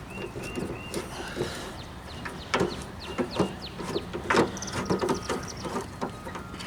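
Irregular metallic clicks and knocks from a Torx driver and the loosened tailgate latch hardware being worked on a Jeep Wrangler YJ, with a few short high chirps in the background near the start.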